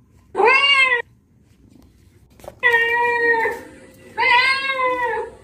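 Ginger cat meowing three times: a short arched call, then two longer, steadier ones.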